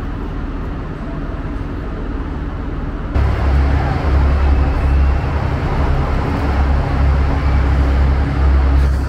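Steady room tone in the station hall, then, about three seconds in, a sudden change to the loud, steady low rumble of the Enterprise train's class 201 diesel locomotive idling at the platform.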